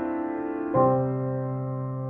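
Outro music on a piano-like keyboard: a held chord, then a new lower chord struck about three quarters of a second in that rings and slowly fades.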